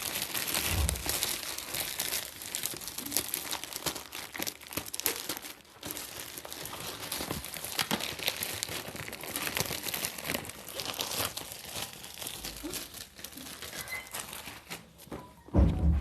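Packaging crinkling and rustling as it is handled and unwrapped by hand, with scattered crackles and a light tearing sound. A dull thump comes just before the end.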